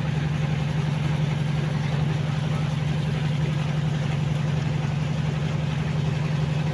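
A river boat's engine running steadily under way: a constant low drone with a fast, even throb.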